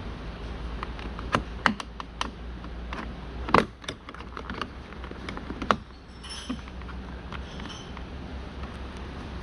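Plastic trim clips clicking and snapping as the door's mirror trim panel is pried loose with a trim tool: a run of sharp clicks, the loudest a little over three and a half seconds in.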